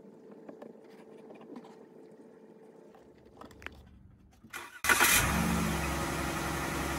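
Oil trickling faintly into a funnel with a few light clicks, then the Ram ProMaster's 3.6-litre Pentastar V6 starts suddenly about five seconds in and settles into a steady idle. This is the first start after an oil change, run with about five quarts in to circulate the fresh oil before topping up.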